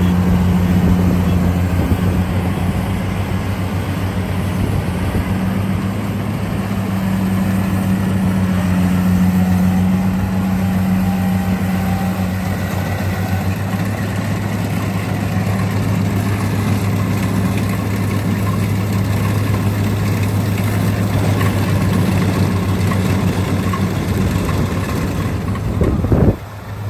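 An engine running steadily at a constant speed, giving a low, even hum. It cuts off abruptly near the end.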